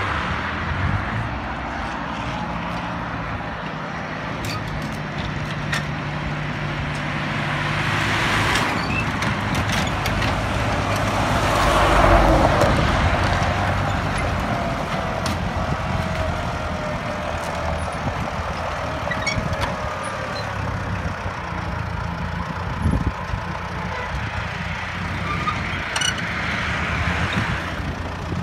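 New Holland T480 tractor engine running at low speed while towing a slurry tanker, a steady low drone that swells about twelve seconds in.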